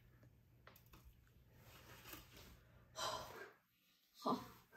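Mostly quiet room, then a breathy exhale about three seconds in and a short, falling sigh-like voice sound near the end.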